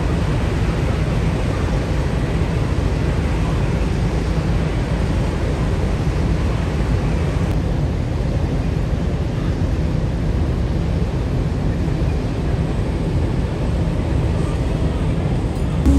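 A river ferry's engine running steadily under way: a constant low rumble with a hiss of wind and water over it.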